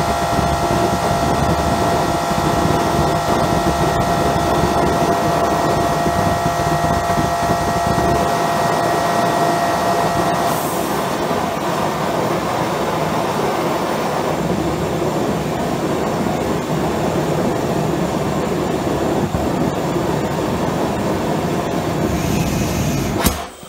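High-velocity compressed-air jet rushing through a homemade propane swirl burner, a turbocharged blow-torch type micro jet, lit by a handheld propane torch. The rush is loud and steady, with several steady whistle tones for roughly the first ten seconds that then stop. Near the end comes a sharp pop and the rush cuts off suddenly.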